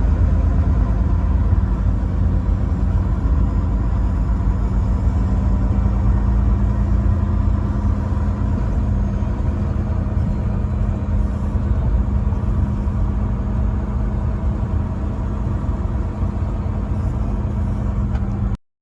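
Truck engine running with a steady low rumble, cutting off abruptly near the end.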